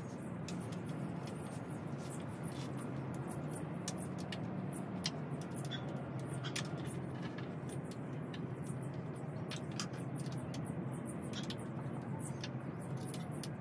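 Small irregular clicks and squeaks from a wooden outdoor armchair being put together by hand, over a steady low hum.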